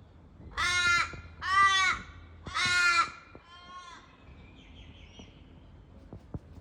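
Australian crow giving four drawn-out, nasal caws in a row, each about half a second long, the last one fainter.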